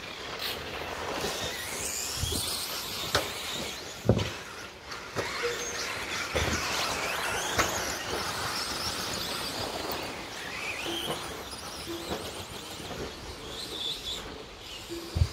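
Electric 2WD RC stadium trucks racing on a dirt track: the motors whine up and down in pitch as they accelerate and brake, with a few sharp thumps, the loudest about four seconds in and just before the end.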